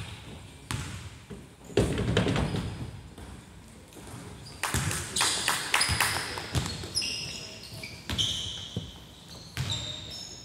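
Basketball bouncing on a hardwood gym floor: a string of separate thuds at an uneven pace, mixed with short high sneaker squeaks on the court.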